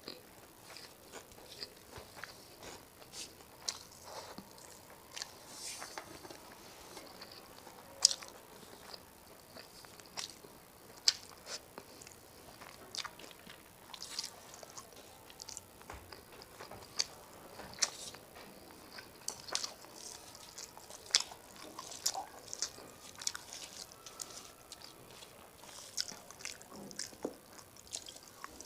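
Close-miked eating sounds of a person chewing rice and fish curry: wet mouth clicks and lip smacks at irregular intervals, a few of them louder and sharper.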